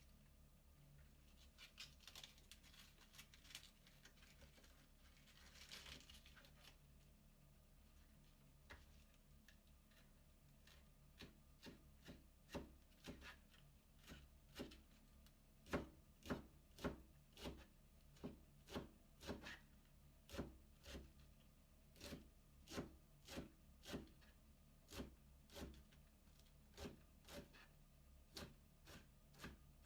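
Kitchen knife shredding a head of cabbage into thin strips on a cutting board: soft rustling of the leaves in the first few seconds, then a steady run of crisp cuts, about one to two a second.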